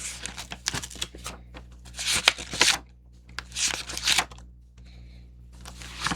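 Sheets of paper rustling and being shuffled by hand, in a few short bursts with small sharp clicks, quieter for a moment near the end.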